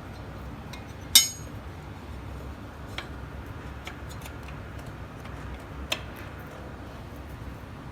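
Light metallic clicks and taps as a brake pad is slid into a motorcycle's rear disc brake caliper: a sharp clink about a second in, smaller ones around three and six seconds, over a steady low hum.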